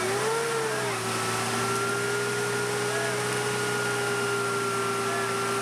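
Willys jeep engine running at a steady low speed as the jeep crawls through mud, its pitch rising slightly in the first second and then holding even.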